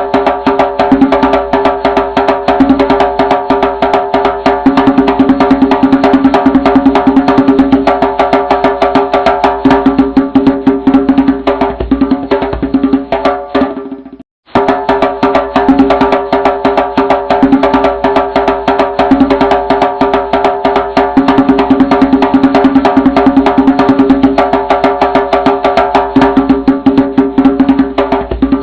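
Background music with quick, dense wood-block-like percussion over a steady pitched backing; it fades and cuts out briefly about halfway, then starts again.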